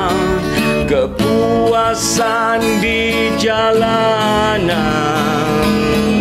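A man singing long held notes with vibrato, accompanied by an acoustic guitar.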